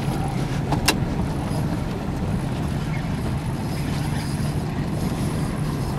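Boat's outboard motor running steadily at trolling speed, a low even hum under wind and water noise, with one sharp click about a second in.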